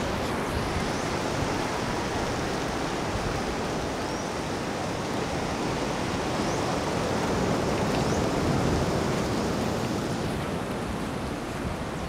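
Steady rushing of sea surf and wind.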